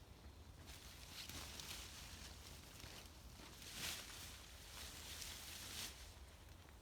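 Faint rustling and shuffling, swelling a few times, with the loudest swell about four seconds in.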